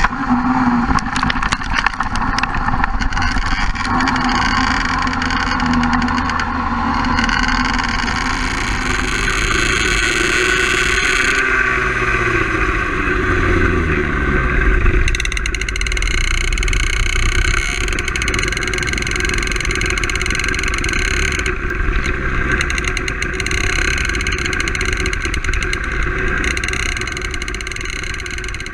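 Two-stroke kart engine (BMB HAT) heard onboard, running at high revs. About ten seconds in its pitch falls away as the kart slows, and it runs on at lower revs.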